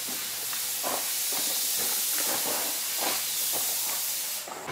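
A steady high-pitched hiss with a few faint knocks beneath it; the hiss cuts off sharply near the end.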